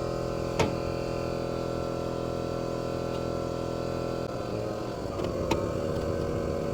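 Shop air compressor running with a steady hum; about four seconds in the sound turns rougher and more uneven. A single sharp click comes about half a second in.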